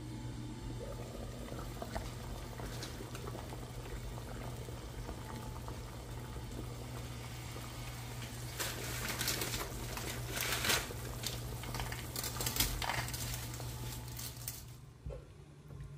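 Pot of water at a rolling boil, bubbling steadily with a low hum underneath. The bubbling gets louder and more splashy from about eight seconds in, once the pot is uncovered, then drops off near the end as dry spaghetti goes into the water.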